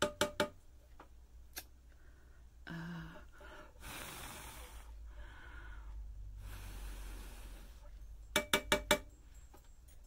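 Sharp clicks and taps from handling a clogged batik tjanting tool: three at the start and a quick run of about five near the end. Between them come soft breathing, a short hum and two breathy exhales of about a second each.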